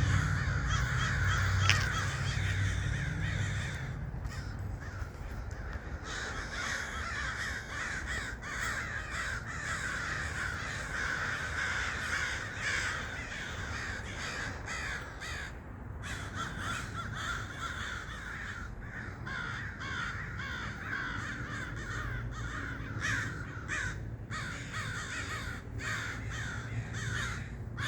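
A large flock of crows cawing all at once, many birds calling over one another without a break. A low rumble sits under the calls in the first few seconds.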